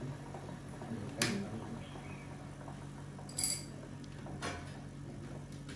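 Small metal instruments clinking, three sharp clinks over a steady low hum.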